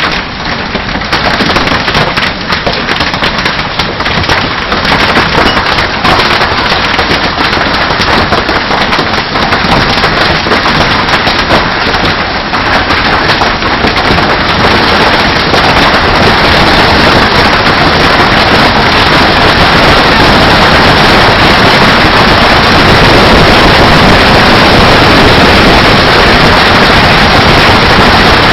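Hailstones pelting down in a heavy hailstorm: a dense, rapid clatter of impacts that thickens over the first half into a steady, loud roar.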